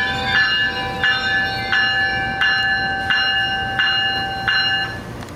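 Warning bell of an approaching Metrolink train led by bilevel cab car 656, ringing in a steady rhythm of about three strokes every two seconds, about seven strokes in all. A steady tone runs underneath and fades out shortly before the end.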